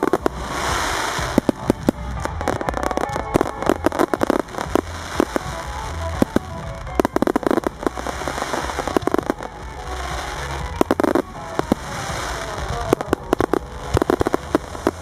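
Fireworks display going off in a dense barrage: rapid crackles and sharp bangs from many shells bursting together, coming in waves every few seconds.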